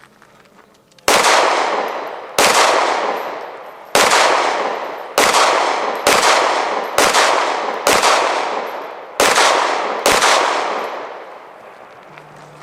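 Nine pistol shots fired at a steady pace about a second apart during an IPSC stage, each followed by a long fading echo.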